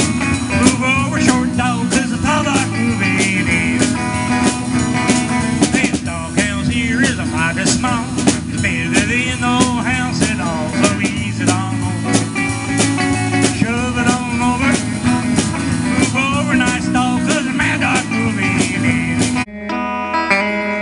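Live electric guitar soloing with bent notes over a drum kit, an instrumental break in a blues song. About a second before the end it breaks off abruptly to a few quieter guitar notes.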